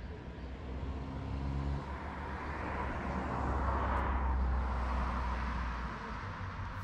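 A car passing on a paved road, its tyre and engine noise swelling to a peak about four seconds in and then fading, over a steady low rumble.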